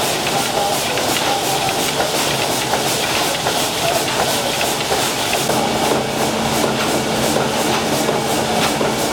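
SS Shieldhall's 800 hp triple-expansion steam engine running, its cranks, connecting rods and valve gear making a steady, rhythmic mechanical clatter. A steady hum joins in about halfway through.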